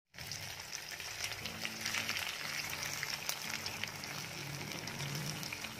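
Cabbage vadis deep-frying in hot oil in a kadhai: a steady sizzle with many small crackles and pops.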